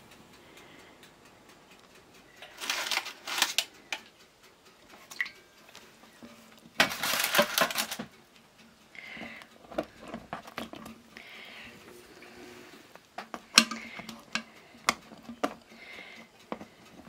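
Kitchen handling sounds: dishes and utensils knocking and clinking lightly, with two loud, noisy bursts of about a second each, in the first half.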